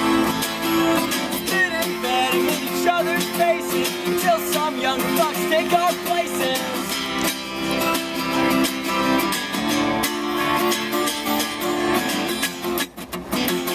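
Acoustic guitars strumming the instrumental ending of a song, with a wavering lead melody over the chords from about two to seven seconds in; the playing stops shortly before the end.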